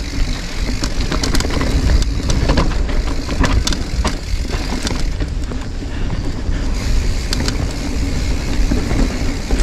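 Mountain bike descending a downhill trail: tyres and frame clattering and rattling over the ground, over a heavy rumble of wind on the microphone.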